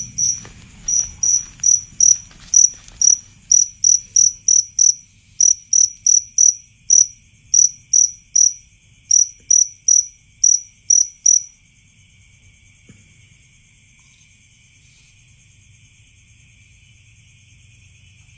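A loud insect chirping in high single-note chirps, about three a second, like a cricket's call; it stops about eleven seconds in. Under it, faint steady high trilling of other insects continues throughout.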